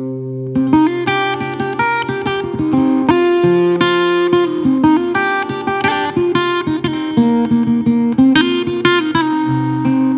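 Background music: a melody of quick plucked-string notes over long-held low bass notes.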